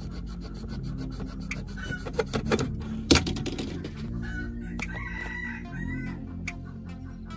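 Utility knife scraping as it scores a thin PVC sheet, with a sharp click about three seconds in. A little past halfway, a rooster crows and chickens cluck in the background, over soft background music.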